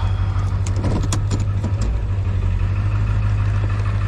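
A vehicle engine running steadily with a low, even hum, with a few light clicks about a second in.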